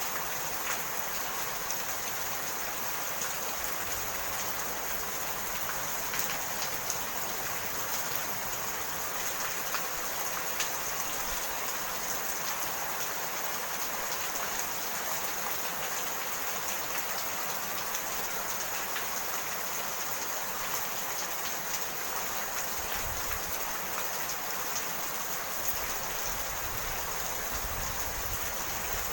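Steady rain falling, a dense even hiss dotted with small drop ticks.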